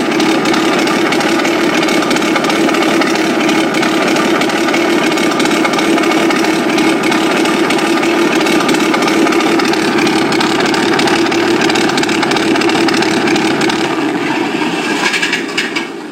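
Benedini electronic sound system playing a simulated piston aero-engine through speakers loosely laid in the cowl of an electric RC Me109F model, running steadily and loudly, then cutting off suddenly at the end.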